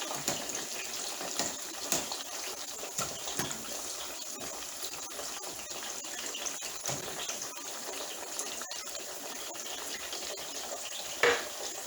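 French fries deep-frying in hot grease: a steady sizzle with constant small crackles and pops.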